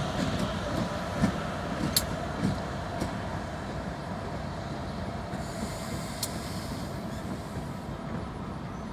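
EMD GP38 diesel locomotive and its passenger cars running on the rails as they move away, a steady engine tone and rumble slowly fading. A few sharp clicks stand out, most in the first three seconds.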